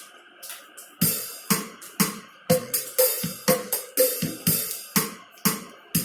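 Roland E-X30 arranger keyboard's built-in waltz style playing its drum rhythm, kick and hi-hat/cymbal hits about two beats a second, starting about a second in.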